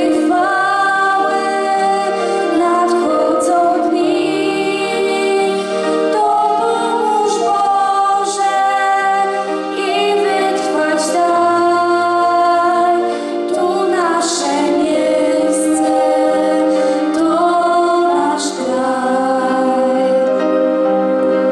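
Two girls singing a song together into microphones, with long held notes.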